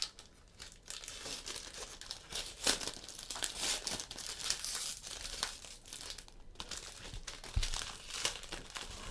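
Foil trading-card pack wrappers crinkling and tearing as packs are opened by hand, with irregular sharp crackles.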